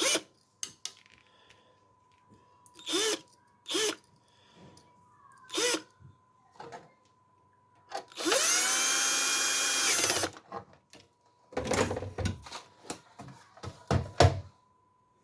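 Electric screwdriver running in short bursts: four quick whirs that rise in pitch in the first six seconds, then one steady run of about two seconds, then several seconds of stop-start bursts near the end.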